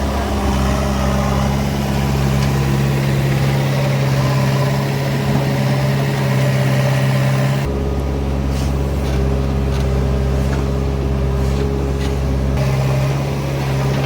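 Heavy diesel engine of a farm or earth-moving machine running steadily. For about five seconds past the middle the sound turns deeper and duller.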